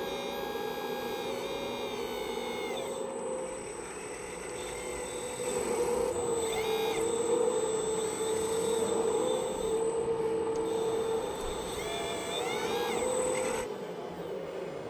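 Electric motors and servos of radio-controlled model machines whining, the pitch gliding up and down as they speed up and slow down, loudest in the middle.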